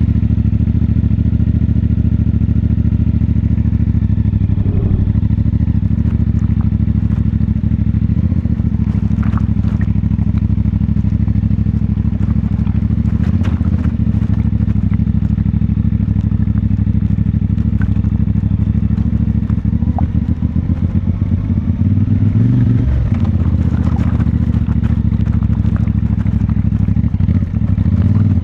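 CFMoto 450MT's parallel-twin engine running steadily at low revs, with small changes in engine note about 5 seconds in and again near 23 seconds. Scattered light clicks and clatter sound over it.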